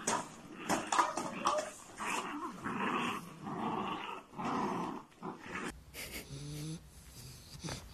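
Puppies growling in a run of short growls while tugging on a cloth strap. The growling stops suddenly about three-quarters of the way through.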